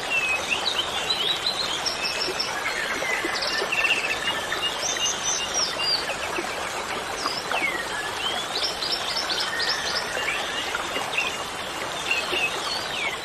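Birds chirping and calling in quick, repeated phrases and short trills, several voices overlapping, over a steady background hiss.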